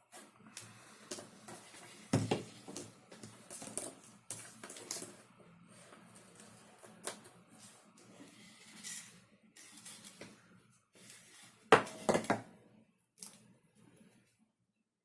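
Small hard parts of a 3D-printed airsoft gun kit being handled and fitted together: irregular clicks and clacks with a louder knock about two seconds in and a cluster of sharper knocks around twelve seconds in.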